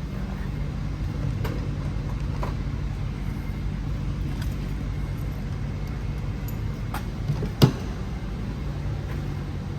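Toyota Mark II JZX100's engine idling steadily through a freshly fitted Tomei titanium exhaust, giving a low, even drone. A single sharp click about two-thirds of the way through.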